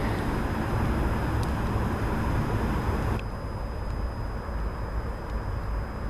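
Steady outdoor background rumble and hiss from an on-camera microphone, with the higher part of the hiss dropping away about three seconds in.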